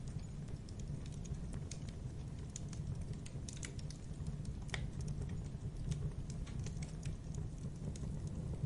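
Fire crackling: a steady low rumble of burning with many irregular sharp crackles and pops, a few louder snaps scattered through.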